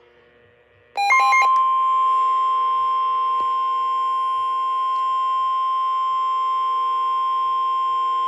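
A brief burst of chirping data tones about a second in, then one long steady single-pitch alert tone: the 1050 Hz warning alarm tone that NOAA Weather Radio sounds before a severe weather alert.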